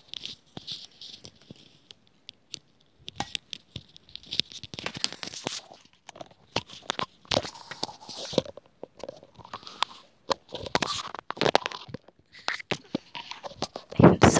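Irregular crackles, clicks and scratchy rustles of a pair of white wired earbuds and their cord being handled close to the microphone, louder near the end.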